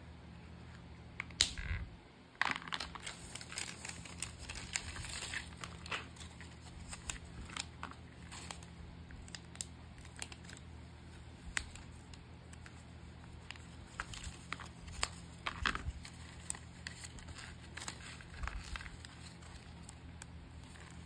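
Packaging being handled by hand while packing orders: irregular crinkling and rustling with scattered sharp clicks and bits of tearing, a loud click about a second and a half in.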